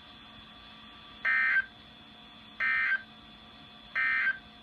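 NOAA Weather Radio SAME end-of-message data bursts: three short digital data bursts about a second apart, signalling the end of the alert test message.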